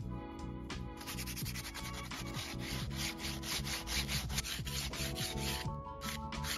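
Thin wooden trim pieces being sanded by hand with sandpaper, in quick back-and-forth strokes of about five a second. The strokes start about a second in and stop shortly before the end.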